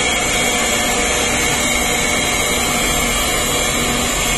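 Forced-air furnace burners on a pyrolysis reactor running steadily: electric blower fans whirring, with a faint steady whine over an even rush of air and combustion noise.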